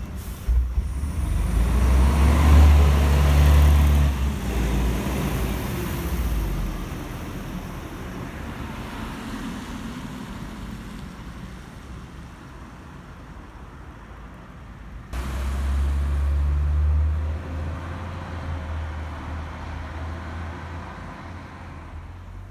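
Mercedes-Benz O405 N² city bus's diesel engine pulling away loudly and fading as the bus drives off. After about fifteen seconds a second loud stretch of engine noise comes in abruptly and slowly dies away.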